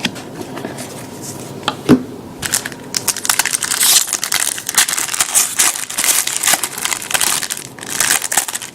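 A single knock, then crinkling and crackling of a football trading-card pack's foil wrapper being torn open and handled, a dense run of crackles from about two seconds in.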